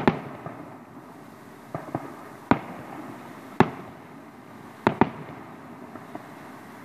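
Aerial firework shells bursting: a series of sharp bangs, roughly one a second, some coming in quick pairs. The bangs stop about a second before the end.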